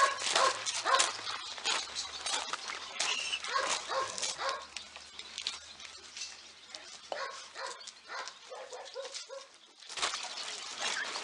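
Several shelter dogs barking at once, short overlapping barks following almost without pause, with a brief lull shortly before the end.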